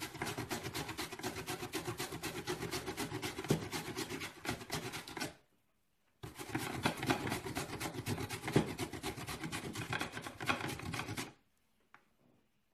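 Peeled apple being rubbed back and forth over the steel grating insert of a plastic hand grater: quick, even rasping strokes, about four a second. The rasping breaks off for about a second a little before halfway, then stops abruptly near the end.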